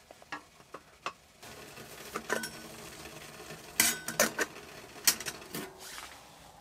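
Metal kettle lid clinking and knocking as it is lifted, with a cluster of sharp clicks about four seconds in and another loud one a second later, over a steady low hiss from the kettle heating on the stove. A few light clicks come in the first second.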